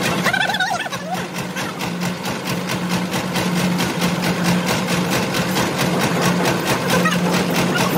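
Engine running steadily, with a rapid, even clatter over a low hum.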